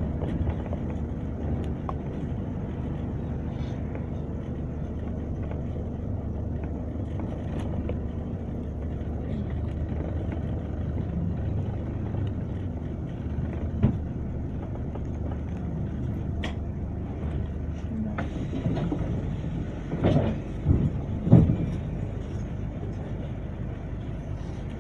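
Steady low rumble of a double-decker bus's engine and running gear, heard from the upper deck, easing as the bus slows to a stop, with a few short loud knocks about twenty seconds in.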